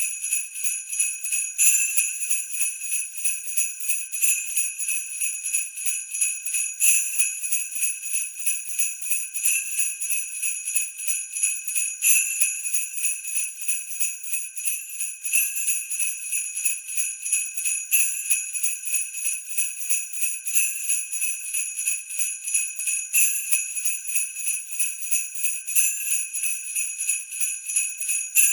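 Sleigh bells shaken in a steady rhythm, a continuous bright jingling with a stronger accent about every two and a half seconds.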